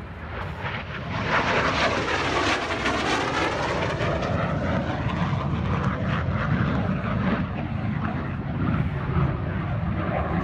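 Small propeller-driven aerobatic plane flying an air-show display, its engine noise swelling about a second in and staying loud, with a sweeping, phasing quality in the first few seconds as it passes.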